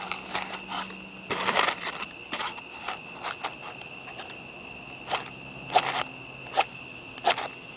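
A dozen short, sharp scratching and crackling sounds, the longest about a second and a half in, over a steady high insect trill such as a cricket's.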